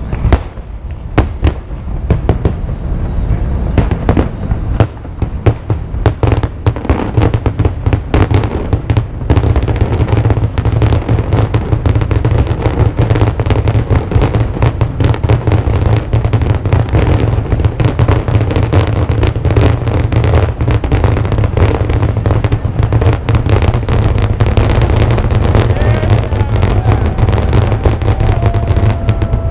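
Aerial fireworks display: a rapid barrage of shell bursts over a steady low rumble. The bangs become almost continuous from about nine seconds in.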